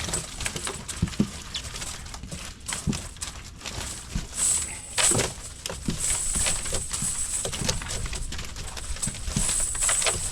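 Irregular knocks and pattering as freshly netted mullet and the cast net are worked on a boat deck.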